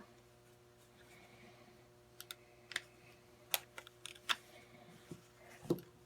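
Light clicks and taps of an angled foregrip's parts being handled and fitted onto an AK quad rail, about eight of them scattered over the second half, over a faint steady hum.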